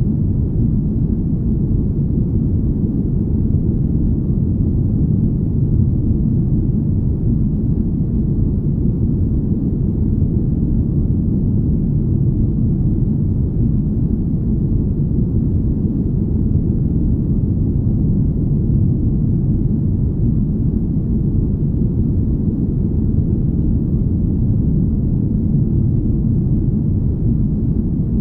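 Deep, smooth rumble ambience: a steady low noise with the higher frequencies cut away, even and unvarying in level.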